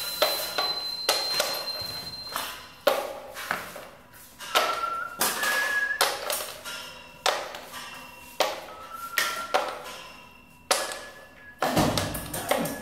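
Improvised sound-art percussion: objects struck one at a time at an uneven pace, roughly once a second. Several of the hits ring briefly with a clear pitch.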